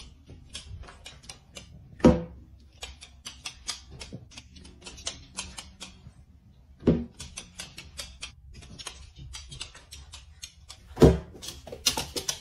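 Rapid, irregular clicking and scratching as a small dog paws at the edge of a quilted bedspread, with three dull thumps about 2, 7 and 11 seconds in as balloons drop off the bed.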